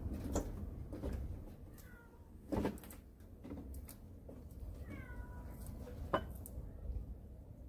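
A cat meowing twice, short falling calls about two and five seconds in, among a few sharp snaps, the loudest about two and a half seconds in.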